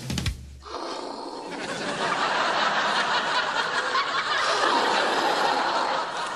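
Studio audience laughing, a long, even swell of laughter.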